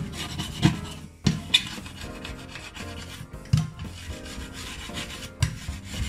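A cloth rubbing back and forth across the glass top of a ceramic hob in uneven scrubbing strokes, a few of them sharper and louder than the rest.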